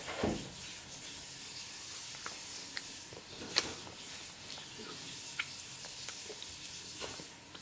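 A baby sucking and gumming a roast chicken drumstick: soft wet smacking and clicking mouth noises over a steady hiss, with one sharper click about three and a half seconds in.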